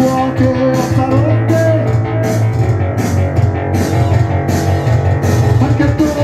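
A punk band playing live and loud, with strong bass under a steady beat of sharp hits about every three-quarters of a second.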